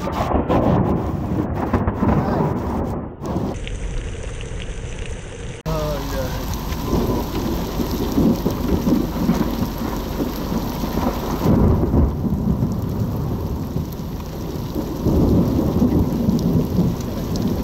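Heavy rain pouring onto an asphalt road, a dense steady hiss of drops striking the wet surface, with a low rumble underneath.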